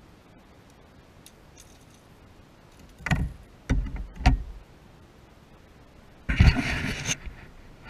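Handling noises in a boat while a small pike is unhooked from a lure: a few sharp knocks and clatters about three to four seconds in, then a louder rustling burst with a thump a little after six seconds.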